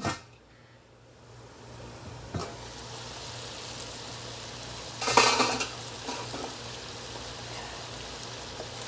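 Chicken igado (chicken, liver and gizzard in vinegar broth) sizzling and simmering in a covered pan. A knock comes as the lid goes on, then a steady hiss builds over the first couple of seconds. A short, loud clatter of cookware comes about five seconds in.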